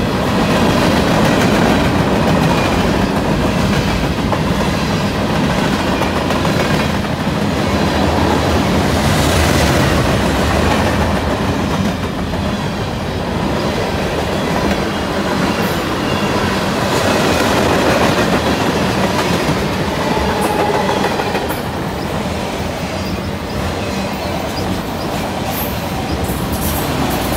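Freight train cars (tank cars, covered hoppers and autoracks) rolling past close by: a steady rumble of wheels on rail, with sharp clacks as the wheels cross the rail joints.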